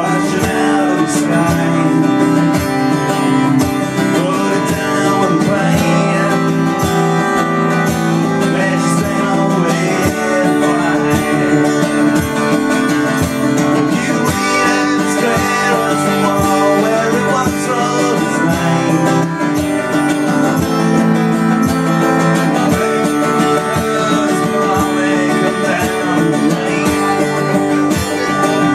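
A man singing while strumming a steel-string acoustic guitar, steady regular strums under his voice.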